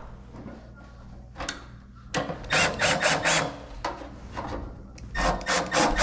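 Cordless drill/driver run in two bursts of about a second and a half each, driving the screw of the run capacitor's mounting strap into the sheet-metal blower housing.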